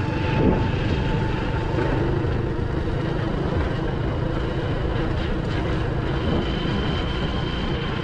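Motorcycle engine running steadily while being ridden, mixed with wind noise on a helmet-mounted camera microphone.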